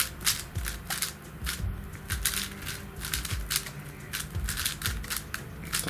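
YJ MGC 5x5x5 magnetic speed cube being turned fast in the hands during a solve: rapid, irregular plastic clicks as its layers snap into place, several a second.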